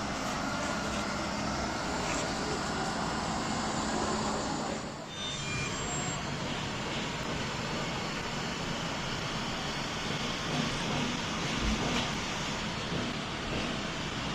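Lefant M300 robot vacuum cleaner running, a steady whir of its suction fan and brushes that dips briefly about five seconds in.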